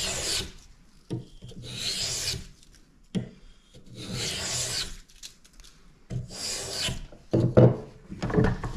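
Small hand plane shaving a spruce violin bass bar blank down to thickness: four long, hissing strokes about two seconds apart. Near the end come a few sharp wooden knocks, the loudest sounds here.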